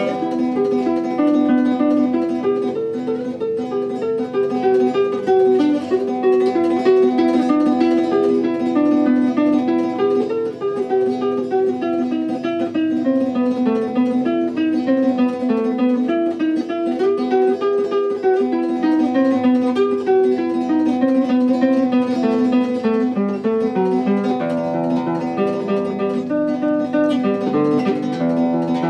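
Acoustic guitar music: a plucked melody of single notes moving up and down over steady low bass notes, without a break.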